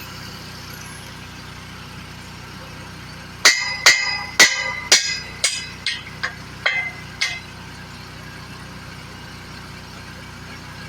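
A hammer striking steel about nine times, roughly two blows a second, each blow ringing with a metallic tone, over a steady low engine hum.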